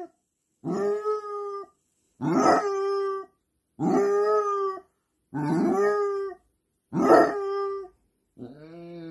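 Basset hound howling in a series of about a second each, with short pauses between: five howls that each open roughly and settle on a held note, then a lower howl begins near the end.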